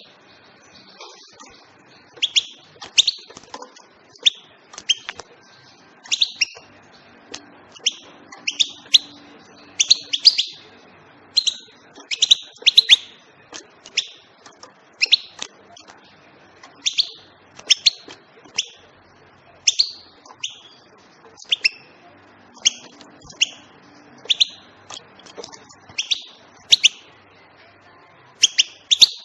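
European goldfinch giving short, sharp chirping call notes over and over, about one or two a second, some in quick pairs.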